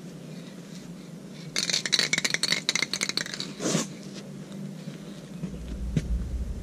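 Aerosol spray can being shaken, the mixing ball inside rattling rapidly for about two seconds, followed by a short burst of noise.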